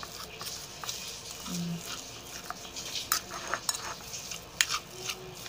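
Metal fork clicking and scraping on a ceramic plate in quick, irregular strokes, mashing soft fermented cassava (tape).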